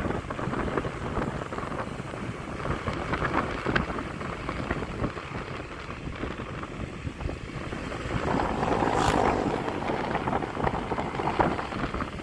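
Road and wind noise from a moving vehicle, with wind buffeting the microphone. The noise swells briefly to a louder whoosh about nine seconds in.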